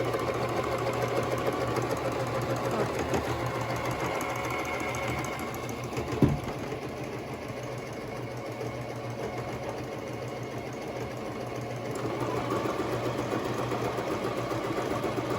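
Singer Tradition 2277 sewing machine stitching at speed, running continuously. It runs a little quieter from about six seconds in, with a single sharp knock there, and picks up again at about twelve seconds.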